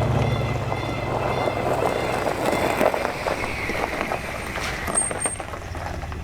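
A vehicle on the move: a low engine hum with rough road and rattle noise, easing off after the first couple of seconds.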